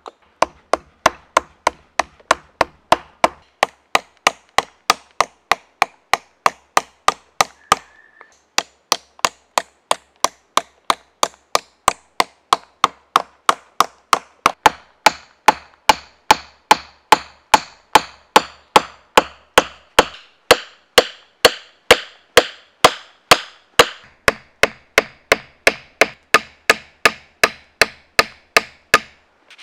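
A hand tool striking a stick of wood laid on a log, in steady knocks about two a second, with a short pause about eight seconds in.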